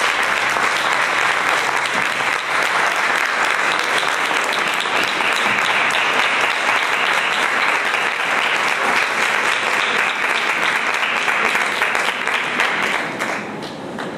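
Audience applauding, a dense steady clapping that dies down about a second before the end.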